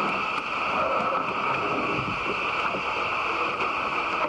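Steady rushing noise of wind and sea around a small open boat, with a few faint knocks.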